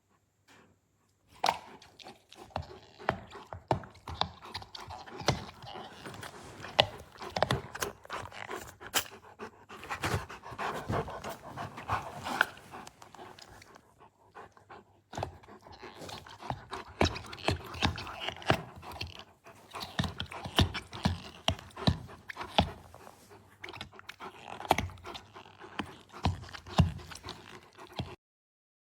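A dog panting while chewing on a natural-rubber toy ball, with many irregular sharp clicks and knocks of teeth and rubber, pausing briefly about halfway through.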